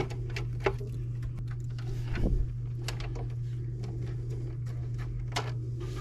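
Scattered light clicks and handling knocks of hands working the wires of a doorbell transformer, with a somewhat louder fumble about two seconds in, over a steady low hum.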